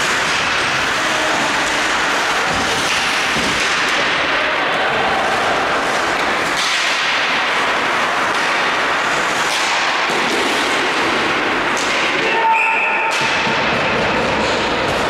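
Ice hockey game sound: a steady hiss of skates on the ice with occasional knocks of puck and sticks. A brief sharp tone sounds about twelve seconds in.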